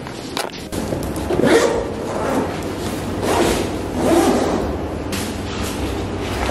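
The long zipper of a padded fabric board bag being pulled open, with the bag's nylon cover swishing and rustling as it is handled. The sound comes in several uneven swells.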